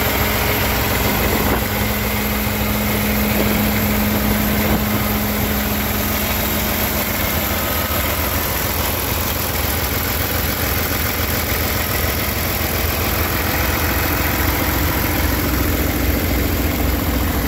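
Paccar MX13 straight-six diesel in a Peterbilt 389 idling steadily.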